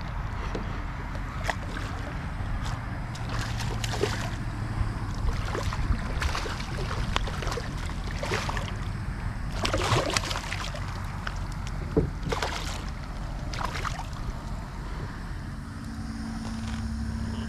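Hooked redfish splashing at the surface beside a kayak as it is fought in on light tackle, with a dozen or so irregular splashes over a steady low rumble of water and wind against the hull.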